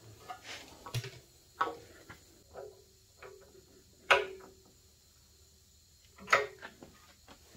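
Scattered small metal clicks and taps from hydraulic hose fittings being screwed into the ports of a lift's hydraulic pump unit, with two sharper, louder clicks that ring briefly, about four and six seconds in.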